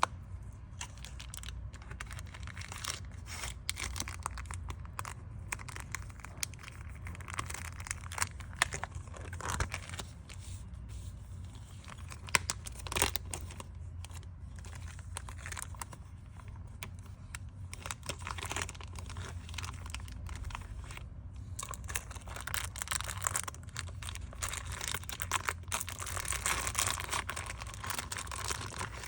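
Photocard packing: plastic sleeves and wrapping crinkling and rustling in a string of small clicks and taps, with a longer rasping stretch near the end.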